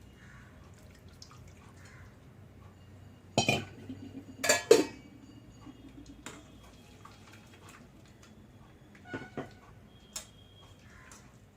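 Kitchen utensils and dishes clinking and knocking as blended golden berry juice is strained: a few sharp clatters about three and a half seconds in, the loudest pair just after, then lighter clinks near the end.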